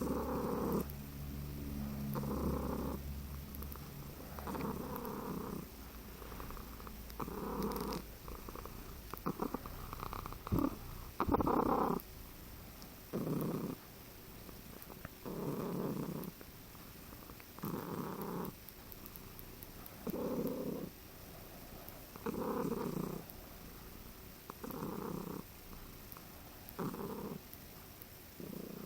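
A very relaxed domestic cat purring in a weird rattling way, a cross between purring and trilling. It comes in bursts of about a second every two to three seconds.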